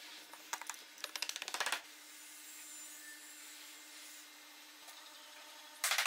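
Thin wooden slats clattering and knocking together in a quick run as they are handled and stacked, for about a second and a half. Near the end a fast series of loud, sharp knocks begins.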